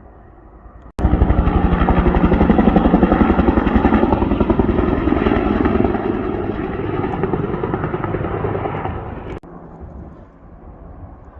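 Helicopter flying low and close, its rotor chop loud and fast. It starts abruptly about a second in and cuts off abruptly near the end, leaving a fainter rumble.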